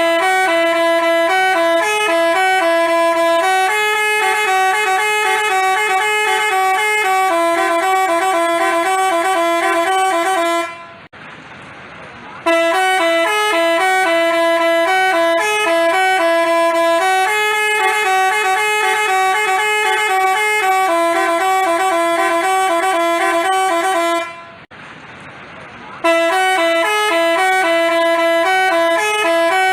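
Basuri telolet horn, a multi-note musical bus horn, playing a melody of stepping notes. The tune runs in phrases of about eleven seconds and breaks off twice for a second or two in between.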